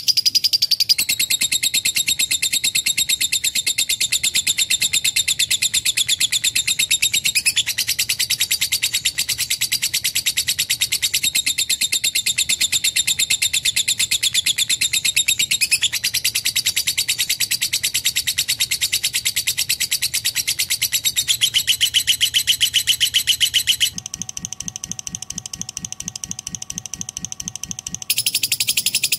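Lovebird singing a long, unbroken, very fast high-pitched trilling chatter. For a few seconds near the end it drops to a quieter run of lower pulsed notes, then the high trill comes back.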